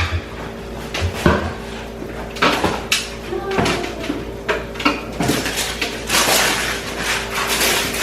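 Kitchen handling noise as groceries and containers are put away: a string of sharp knocks and clatters as containers and doors are set down, opened and shut, with a longer rustle about six seconds in.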